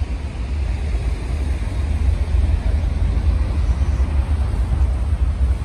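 City street traffic: a steady wash of passing cars under a heavy, unsteady low rumble.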